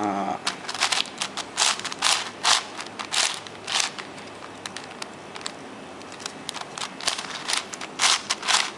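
Plastic clicking and crackling from handling a 7x7x7 puzzle cube and its packaging. It comes as a run of short, sharp bursts, a few each second, busiest about two seconds in and near the end.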